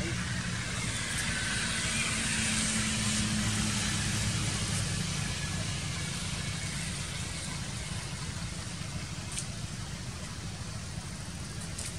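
A vehicle engine humming steadily, growing louder over the first few seconds and then fading away, over a steady background hiss; a couple of faint clicks near the end.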